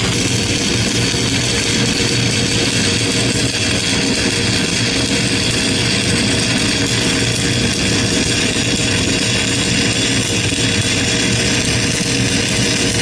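Stick (SMAW) arc welding with a heavy 7024 electrode: the arc crackles and sizzles steadily as the second pass is run on thick beveled steel plate, the rod weaved side to side. A steady low hum runs underneath.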